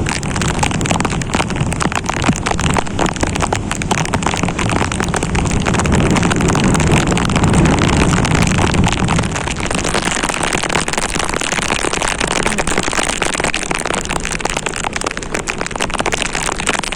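Heavy rain falling, a dense steady pattering hiss. Partway through, a low rumble swells for a few seconds and then fades.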